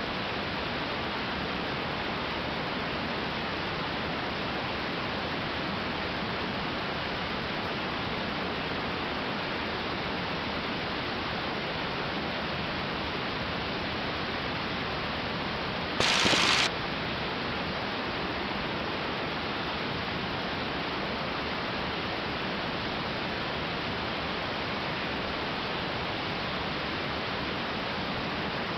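Steady rushing cockpit noise of a 1946 Aeronca 7AC Champ in flight, engine and airflow blended into an even rush with no distinct engine note. About 16 seconds in there is a brief, louder rush lasting under a second.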